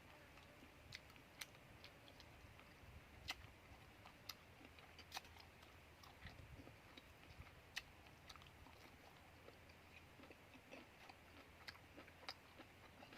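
A person chewing and biting grilled chicken close to the microphone: faint, irregular mouth clicks and small crunches.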